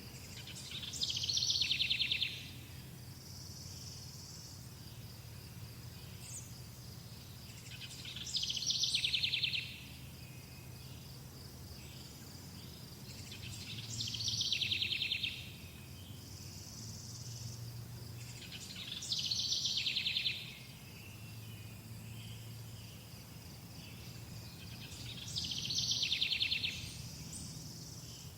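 A songbird repeating the same song five times, about every six seconds: a fast trill of about a second and a half that starts high and falls in pitch. Underneath runs a steady high chirring of insects and a faint low hum.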